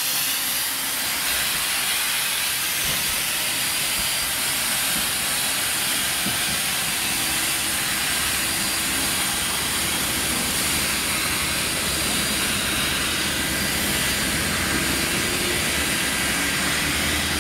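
Steam locomotive venting steam in a loud, steady hiss.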